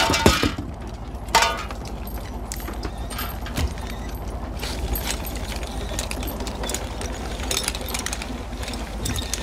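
Shrimp boat engine running with a steady low throb. Two loud clattering knocks come in the first second and a half as junk from the net hits the deck, and light knocks and rattles follow as the junk is picked through.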